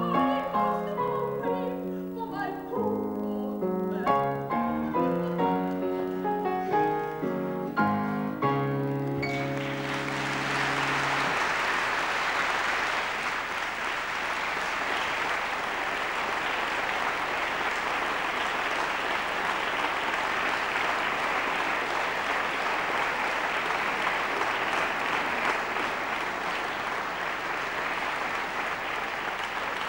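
Grand piano playing the closing bars of a song, ending on a final chord about nine seconds in, then steady audience applause.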